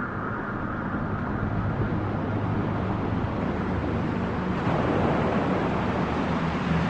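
Intro sound effect: a swelling whoosh of noise that builds gradually, with a brighter surge about five seconds in, over a low steady drone.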